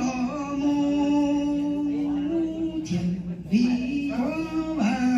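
A man sings Hmong txiv xaiv (chanted verse) unaccompanied into a microphone. He holds long drawn-out notes that step up and down in pitch, with short breaks for breath.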